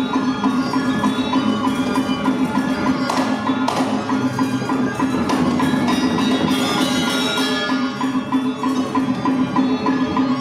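Balinese gamelan playing dance accompaniment: bronze metallophones ringing over a steady fast pulse, with a few sharp cymbal-like accents in the middle.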